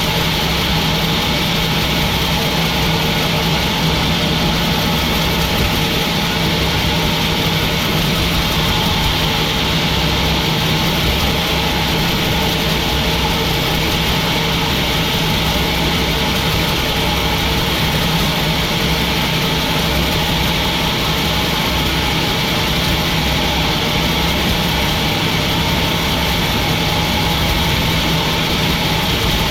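Sawmill machinery running steadily: a constant engine-like drone that holds the same pitch and level throughout.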